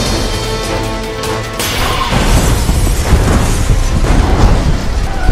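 Dramatic intro music, then about one and a half seconds in a sudden car-crash sound effect: a loud impact followed by a long spill of shattering glass.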